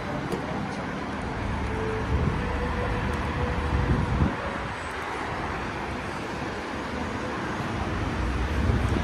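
Steady city traffic noise: a continuous low rumble of cars on nearby roads, swelling briefly about four seconds in and again near the end.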